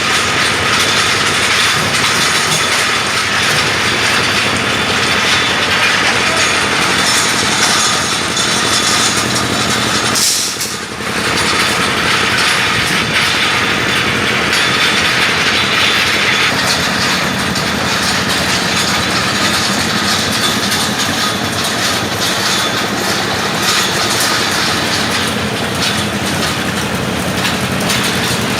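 Rebar bending machine running steadily with a dense, even mechanical noise. The level drops briefly a little after ten seconds in.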